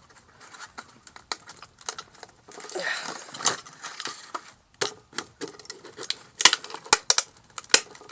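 A phone being hit and handled: a run of irregular hard clicks and knocks, with a few sharper strikes in the second half.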